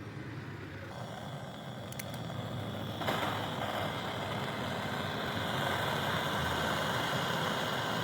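Gas brazing torch flame hissing steadily while refrigeration coil joints are brazed. It grows louder about one second in and again about three seconds in.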